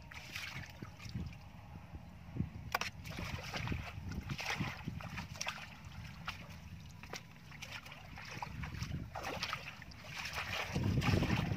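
Shallow water and wet sand sloshing and scraping as a plastic basket is scooped and dragged through them, with scattered small splashes and clicks. Gusts of wind on the microphone grow strong near the end.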